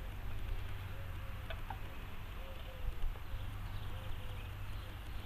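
Outdoor ambience: a low steady rumble, faint short calls from a distant bird repeating every half second or so, and a single light click about a second and a half in.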